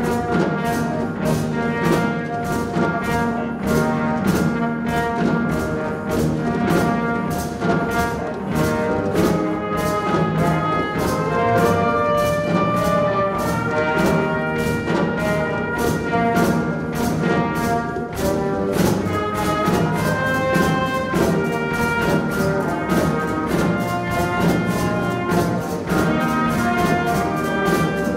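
Live band music without singing: a trumpet carries the tune over keyboards and a drum kit keeping a steady beat.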